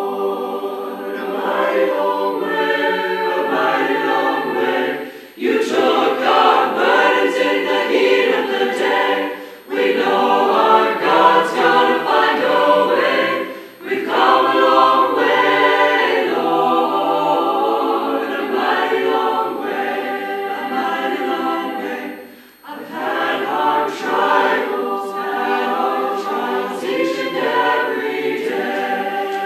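Mixed choir of men's and women's voices singing a hymn a cappella in harmony, in long phrases broken by four short pauses for breath.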